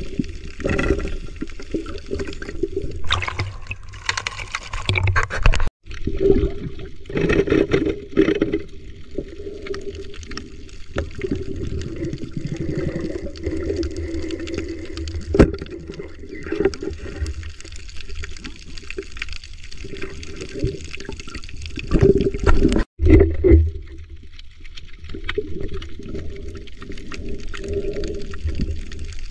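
Muffled underwater sloshing and bubbling of water around a camera in a waterproof housing as the diver swims, cutting out completely twice for an instant.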